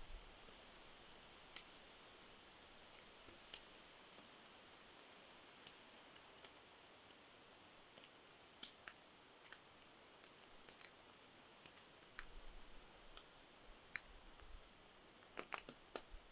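Small wood campfire crackling: scattered sharp snaps and clicks at uneven intervals over a faint hiss, with a quick cluster of snaps near the end.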